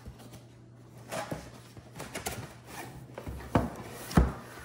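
Cardboard packaging being handled and opened: scraping and rubbing as the outer sleeve slides off the box, with two dull thumps near the end.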